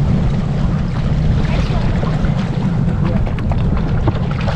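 Wind buffeting the microphone, a loud, uneven low rumble, with a few faint clicks about three to four seconds in.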